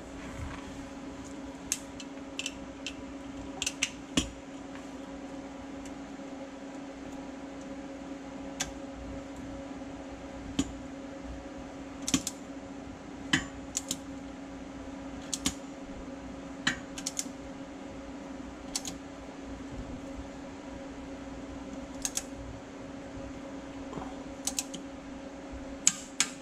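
Hand ratchet and socket turning the bolts of a Jeep front differential skid plate: short bursts of sharp pawl clicks and metal clinks, irregular and a second or two apart, over a steady hum.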